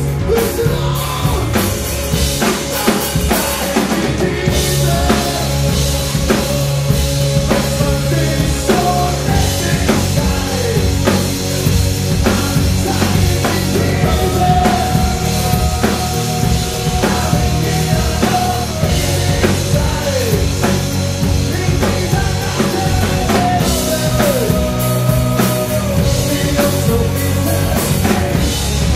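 Rock band playing live: electric guitar, bass guitar and drum kit, with a steady drum beat and sliding, bending melody lines.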